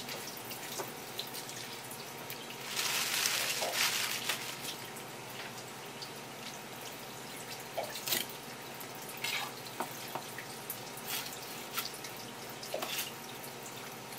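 Water at a kitchen sink: a tap runs briefly about three seconds in, then scattered drips and light clicks and knocks.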